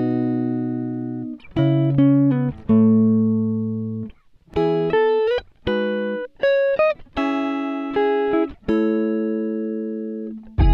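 Background music: plucked guitar chords and single notes, each struck and left to ring out and fade, with short pauses between phrases.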